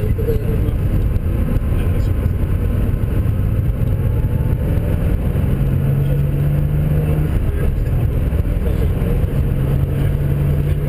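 Racing car engine running at fairly steady revs under heavy rumbling road and wind noise, its note sitting higher for stretches partway through and again near the end.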